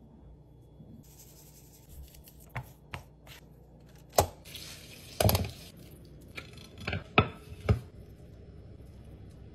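Kitchen handling sounds: about seven sharp, irregularly spaced knocks and clatters of a baking tray, a serving spatula and ceramic plates being handled, the loudest in the second half.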